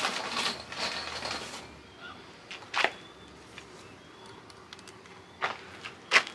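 Handling noise as equipment is held and shifted against a wooden mounting board and a cordless drill is picked up: rustling for about a second and a half, then three separate sharp clicks. The drill is not yet running.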